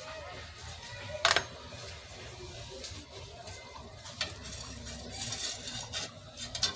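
Scattered light clicks and taps of a metal slotted spatula and utensils against a nonstick frying pan over a low steady hum. The loudest is a sharp click about a second in, with a few more near the end.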